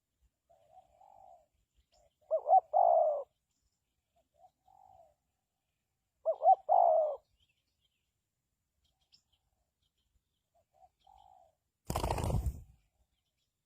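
Spotted dove cooing: two loud song phrases about four seconds apart, with fainter coos from a more distant dove between them. A short noisy burst near the end, possibly wingbeats.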